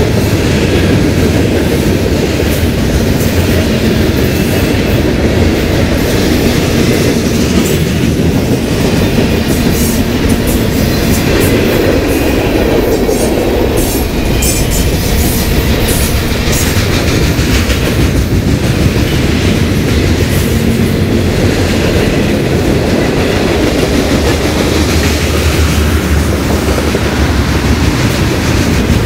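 A freight train's tank cars and boxcars rolling past on steel wheels: a loud, steady rumble dotted with rapid clicks and clanks from the wheels on the rails.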